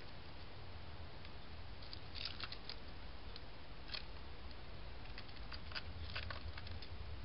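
Soft crackling rustles in dry leaf litter and grass, in a few short clusters about two seconds in and again around five to six seconds in, over the trail camera microphone's steady hiss and low hum.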